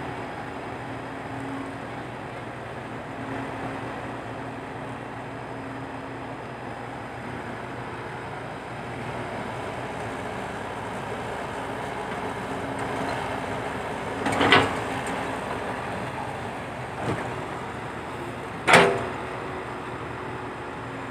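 Heavy diesel earthmoving machinery, an excavator working with dump trucks, running steadily. Two loud bangs sound about four seconds apart in the second half.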